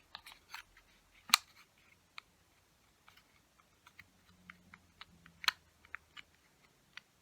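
Small hard plastic parts of a 1980s Gundam model kit clicking and tapping as they are handled and pressed together, with a sharp click about a second in and another about five and a half seconds in.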